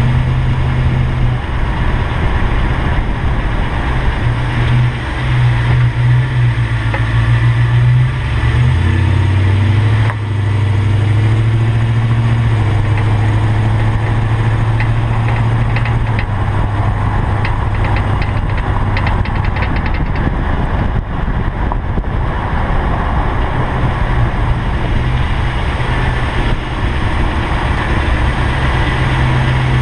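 2005 Toyota Tundra pickup running, a steady low engine and drivetrain hum with a shift in pitch about eight to ten seconds in, and faint light ticks for a few seconds in the middle.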